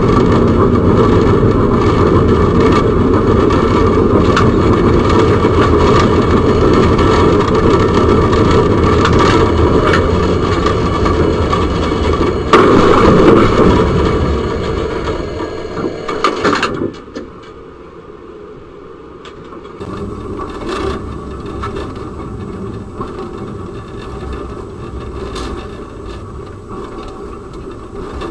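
Tram running on its rails, heard from inside the driver's cab: a loud, steady rumble and rattle, with a sudden louder stretch about twelve seconds in. About two-thirds of the way through, the sound drops abruptly to a much quieter cab noise with scattered clicks and knocks.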